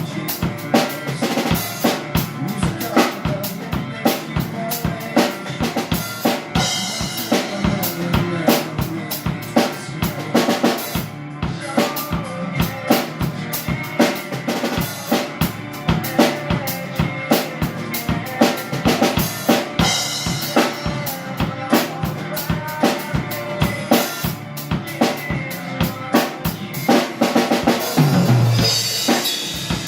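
Drum kit playing a driving rock groove, with bass drum, snare and rimshot hits, over a full rock band backing.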